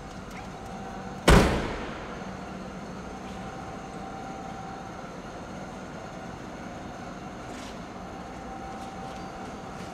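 One sharp, loud bang about a second in, ringing away briefly in a large hard-walled room, over a steady hum of room ambience.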